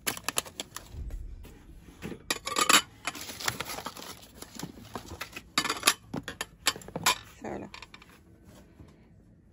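A stack of pressed-glass cake plates clinking and knocking against each other as they are handled and lifted out of their box, with a quick run of sharp glassy clinks that dies down near the end.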